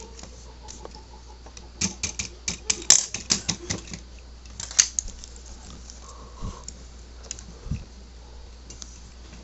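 Plastic Lego pieces clicking and knocking as the joints of a model's leg are rotated and folded by hand. There is a quick flurry of sharp clicks about two seconds in, one loud click near five seconds, then a few scattered softer ones.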